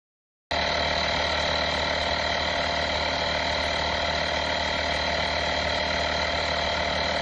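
Battery-powered handheld tire inflator's compressor running steadily, starting abruptly about half a second in and cutting off suddenly at the end.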